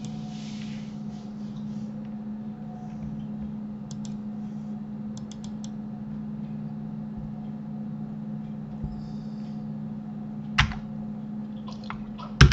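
Scattered clicks of a computer keyboard and mouse over a steady low electrical hum, with two sharper key clicks near the end.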